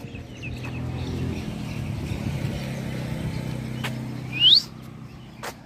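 A vehicle goes by with a low engine rumble for the first few seconds, then a bird gives a short, loud rising chirp about four and a half seconds in and again at the very end. A couple of sharp clicks fall in between.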